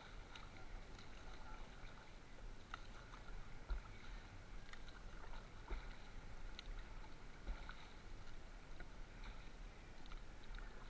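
Faint water sounds of a wooden paddle working a small outrigger canoe, with scattered light knocks and clicks.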